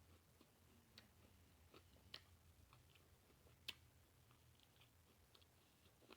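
Near silence with faint chewing and scattered mouth and food clicks of someone eating, the sharpest click about three and a half seconds in.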